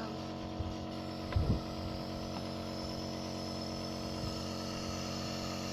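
Compressor nebulizer's motor running with a steady hum, with a brief low thump about one and a half seconds in.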